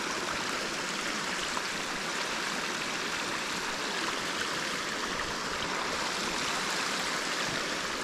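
Running water of a small spring creek: a steady, even rush.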